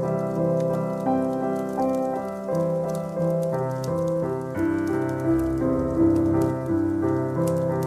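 Gentle piano music playing a slow sequence of notes, with faint crackling clicks of burning logs over it.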